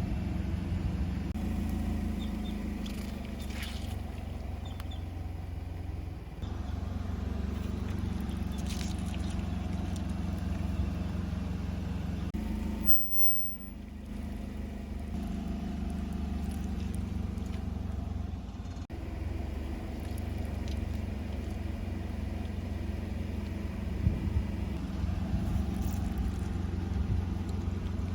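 Car engine running steadily at low speed as the car rolls over objects, with a few brief crackles from things being crushed under the tyres.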